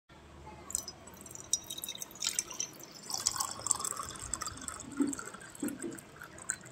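Water poured in a thin stream into a stainless steel tumbler, splashing and trickling as the tumbler fills, starting about a second in and getting busier after about two seconds.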